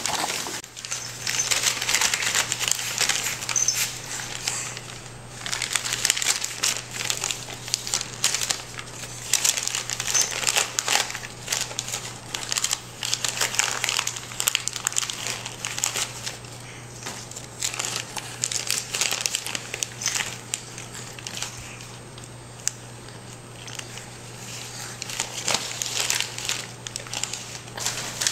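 Glossy newspaper flyers crinkling and rustling as a baby grabs, crumples and mouths them, in irregular bouts with brief lulls.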